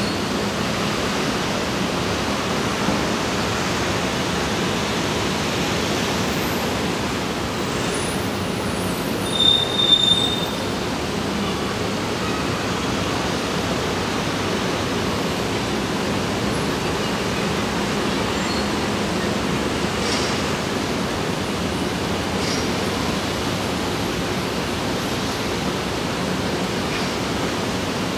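Steady outdoor background noise with a faint low hum, broken by a brief high squeal about nine and a half seconds in.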